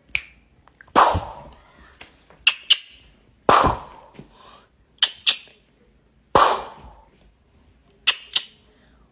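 Mock gunshots aimed at a kitten playing dead: a quick pair of sharp clicks, then about a second later a loud sudden bang that dies away, repeated three times.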